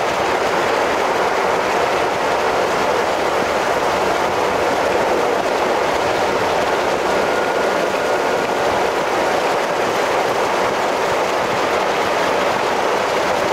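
Steady road noise from a car driving along a highway, heard from inside the cabin: an even, unbroken rushing rumble.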